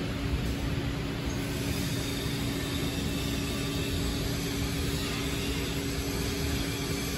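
Steady mechanical hiss with a low hum and a faint steady drone, unchanging throughout, typical of running workshop machinery in a welding shop.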